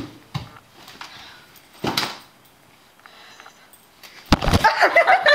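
A few soft knocks and rustles, then a young woman's high voice, bending quickly in pitch, near the end.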